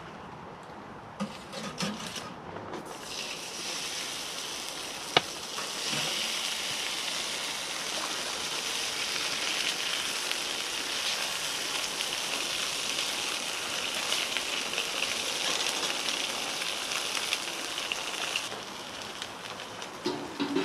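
Bacon and egg frying in a pan, a steady sizzle that starts about three seconds in and eases off near the end. A few light knocks come at the start and one sharp click about five seconds in.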